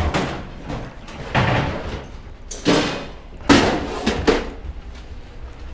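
Thumps and scraping clatters of hard scrap items being picked up, moved and set down: about five loud knocks, roughly a second apart.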